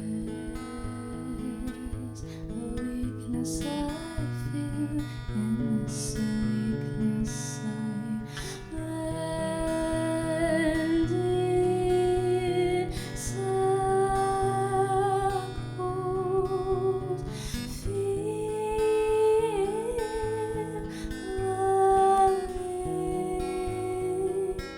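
Acoustic guitar strummed and picked under a solo voice singing long held notes with vibrato, in a sad original song.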